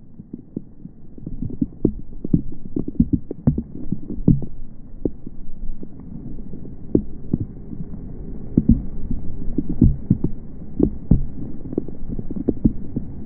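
Heavy rain, the drops striking the phone and its microphone up close: a dense, irregular run of dull taps and thumps that grows louder over the first couple of seconds.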